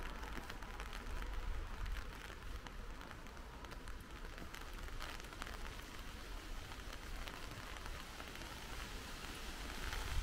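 Rain falling steadily, with many small drops ticking and a low rumble underneath.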